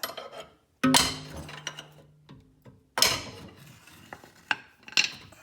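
Metal tools clanking against metal: four sharp clanks, about one second in, three seconds in and two close together near the end, the first ringing on briefly.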